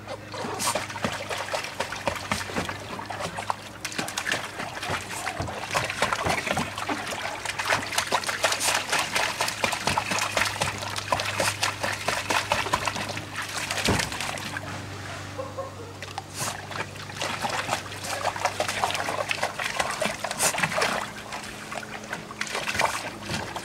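Water splashing and sloshing in a plastic kiddie pool as a Jack Russell terrier wades through it, in quick, irregular splashes and drips.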